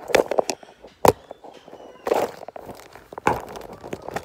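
Handling noise from a phone being moved and propped up: a run of knocks and rubbing scuffs, with one sharp knock about a second in.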